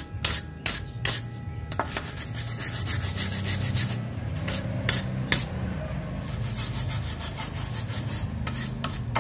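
Wire brush scrubbing rust off the steel lower shock-absorber mounting stud on a Toyota Innova's rear axle in rapid back-and-forth strokes, cleaning it before grease goes on.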